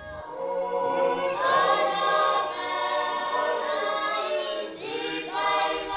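A group of children singing together unaccompanied, a choir of voices holding long notes in a melody.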